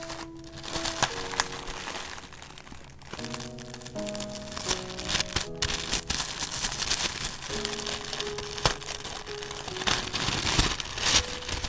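Thin translucent wrapping paper crinkling and rustling as hands unfold a wrapped package, with sharp crackles throughout, under soft background music.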